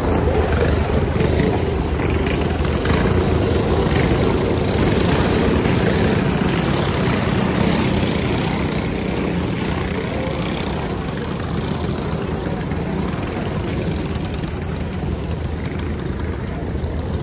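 Engines of several caged champ racing karts running laps on a paved oval, a continuous mixed drone, with one kart passing close near the middle.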